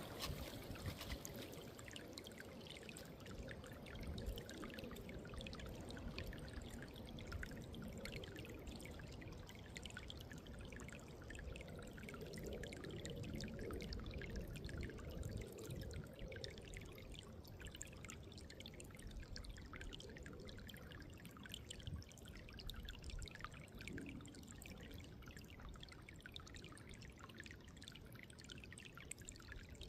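Running water trickling and splashing steadily, a continuous fine babble of small splashes.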